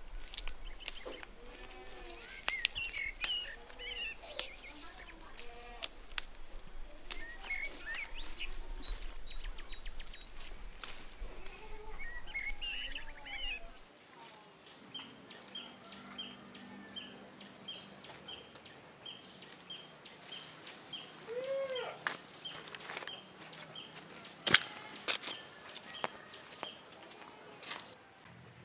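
Birds chirping outdoors over leaves rustling and snapping as they are picked by hand, with a low hum underneath. About halfway in the hum stops and a bird repeats a short high note about twice a second, with a few sharp clicks near the end.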